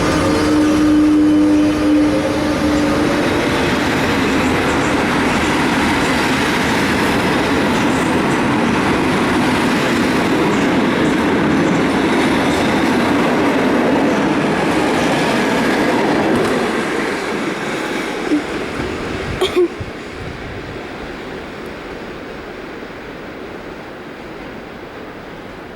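Passenger train departing: the carriages roll past with a steady rumble and rail noise, and a steady tone sounds in the first few seconds. The noise fades away after about two-thirds of the way through, with a few sharp clicks near the end.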